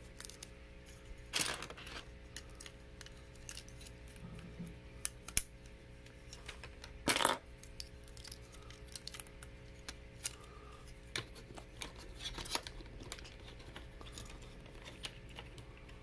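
Plastic Lego Hero Factory parts clicking and rattling as they are handled and snapped together, with a few louder rustles among the small clicks.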